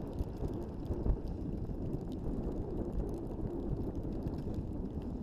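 Wind buffeting the microphone on an open boat, a low steady rumble, with one sharp thump about a second in.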